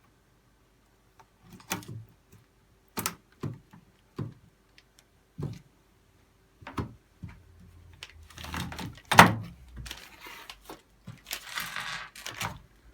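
Computer parts being handled: a series of separate sharp clicks and knocks, then scraping and rustling with one loud knock about nine seconds in.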